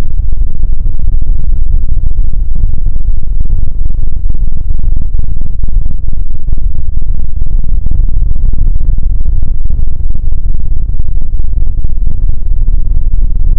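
A loud sound effect slowed down far below normal speed, turned into a deep, distorted rumble that stays near full volume without a break.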